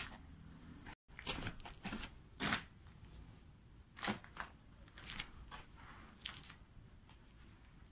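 Faint scuffs and crunches at irregular intervals from work boots on a dusty concrete floor and stone wool insulation boards being handled and laid down. The sound cuts out completely for a moment about a second in.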